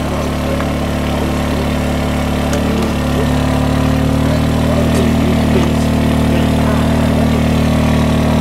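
An engine running steadily, with a slight rise in pitch and level about three seconds in.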